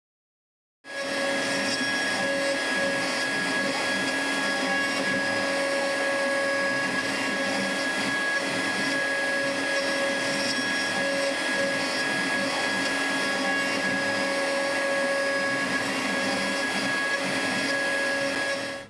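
CNC router spindle on a ShopBot Desktop running steadily, with dust-collection suction, as it cuts a walnut table-leg section turning on a rotary indexing head. It starts about a second in, after a moment of silence, and holds a constant whine.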